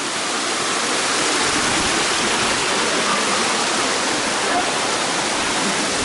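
A shallow stream rushing over layered rock ledges and small cascades, a steady, even rush of water.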